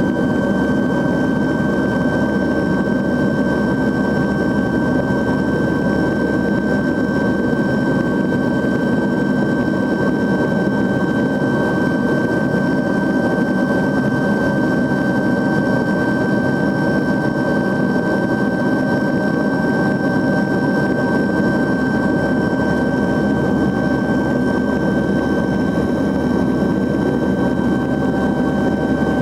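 Steady in-flight cabin drone of a YS-11's Rolls-Royce Dart 10 turboprop engines: a constant high whine over a dense low rumble.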